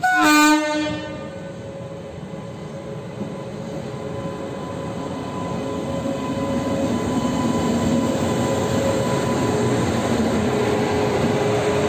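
WAP7 electric locomotive sounding a short horn blast of about a second, then running slowly past, its steady running noise and a faint steady whine growing louder as it nears.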